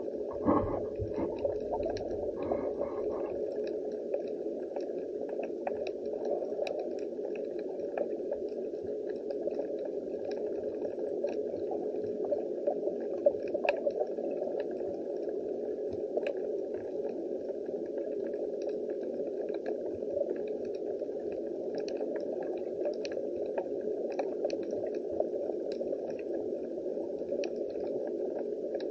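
Underwater ambience picked up by a camera submerged in shallow seawater: a steady, muffled water hiss with many faint scattered clicks and crackles. A few bubbly, gurgling sounds come in the first three seconds.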